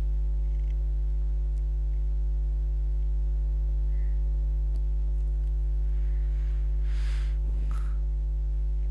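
Steady low electrical mains hum with evenly spaced overtones, picked up on the recording. A short soft hiss comes about seven seconds in.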